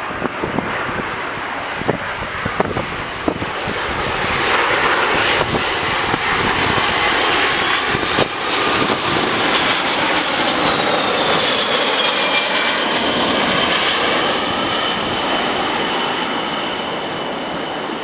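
Boeing 767-336ER's Rolls-Royce RB211-524H engines on final approach passing overhead: a jet roar that builds for several seconds and holds, with a high whine that slowly falls in pitch as the aircraft goes past. A few short knocks of wind on the microphone in the first few seconds.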